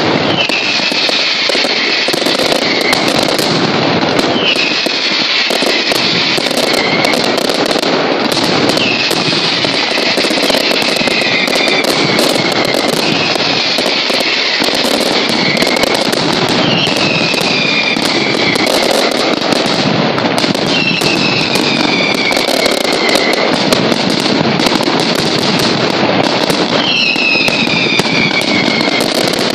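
Mascletà firecrackers: a dense, unbroken barrage of sharp cracks. Whistling fireworks slide down in pitch every couple of seconds over it.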